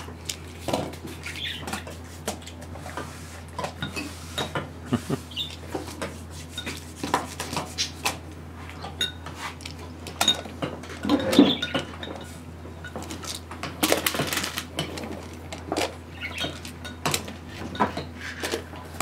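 Plastic magnetic building tiles clicking and clacking together as they snap into place and are set on a table, in irregular scattered clicks with a busier flurry about halfway through.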